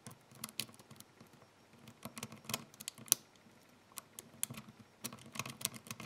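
Faint, irregular clicks and ticks of a steel lock pick brushing over the pins of a DOM dimple lock cylinder. Tension is eased off a little so that overset pins can drop back to the shear line.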